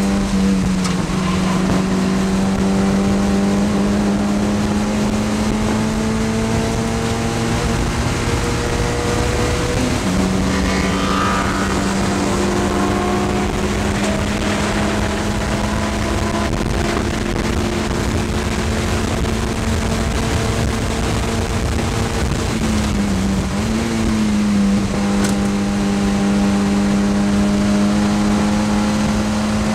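Mazda MX-5 production race car's four-cylinder engine heard from inside the cockpit, running hard at a steady pitch with road and wind noise beneath it. The tone breaks briefly about ten seconds in, and the pitch dips and comes back a little after twenty-two seconds.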